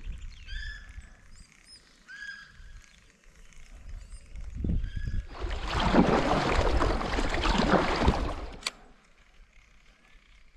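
A bird calls several times over a low rumble. About five seconds in, a kayak paddle splashes and churns the water for about three seconds, the loudest sound, and cuts off suddenly.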